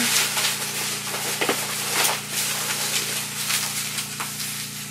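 Bubble wrap and plastic packing crinkling and rustling as a wrapped item is pulled out of a cardboard box, with irregular crackles throughout.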